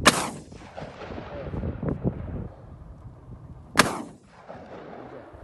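Two shotgun shots firing 28 g home-cast slugs, about four seconds apart. Each is a sharp crack followed by an echo that dies away over about a second.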